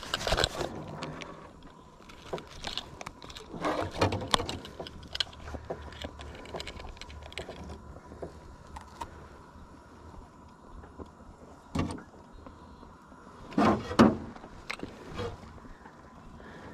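Handling noise as a large smallmouth bass is weighed on a handheld digital fish scale with a lip grip: scattered clicks, rattles and knocks, the loudest a pair of knocks about three-quarters of the way through, over a faint steady high tone.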